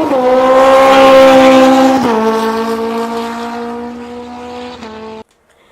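Engine running at high revs with a steady pitch that drops in two steps as it fades, then cuts off abruptly.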